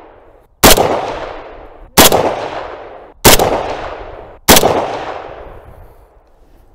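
Kalashnikov-pattern rifle firing four single aimed shots about a second and a quarter apart, each sharp crack followed by a long fading echo.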